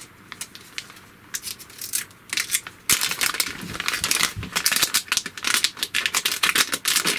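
Crinkling of a plastic anti-static bag being handled and opened: a few scattered crackles at first, then a dense run of crinkling from about three seconds in.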